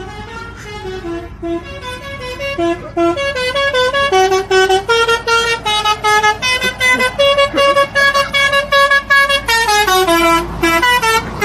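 A truck's musical air horn playing a tune, a quick run of notes stepping up and down in pitch. It grows much louder as the truck approaches and is loudest as it passes close by, near the end.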